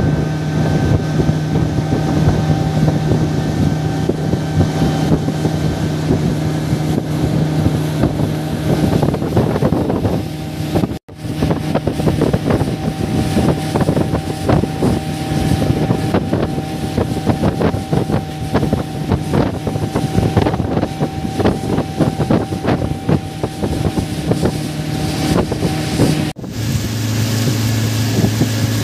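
A small fishing boat's engine running steadily under way, with wind buffeting the microphone and water rushing along the hull. The sound breaks off for an instant twice, and near the end the engine note is lower.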